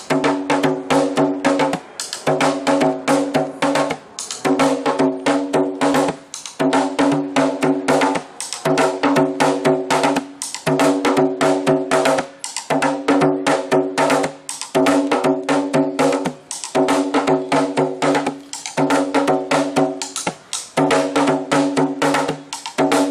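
Music of rapid drumming over a held, pitched tone. It goes in phrases of about two seconds, each ending in a short break before the pattern starts again.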